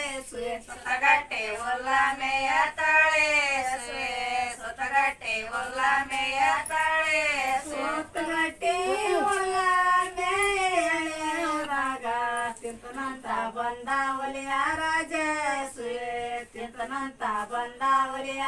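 Unaccompanied female singing of a Kannada folk song: a slow melody that bends and wavers through phrases of a second or two, with no instruments.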